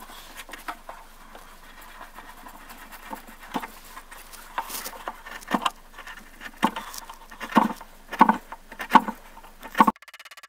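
Knife blade scraping and cutting at wooden dowel plugs set in the cabinet's floor, trimming them flush: irregular short scrapes and sharp clicks, louder and more frequent in the last few seconds.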